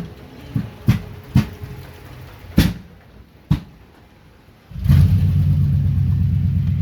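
6.0 L V8 of a 2010 Silverado hybrid misfiring: several sharp, irregular pops over the first three and a half seconds, then about five seconds in the engine comes in loud and steady. The misfire and backfiring come from a bad active lifter stuck in the block.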